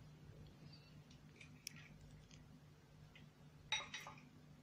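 Near silence: faint kitchen room tone with a low steady hum and a few light clicks, then a short clatter about three and a half seconds in.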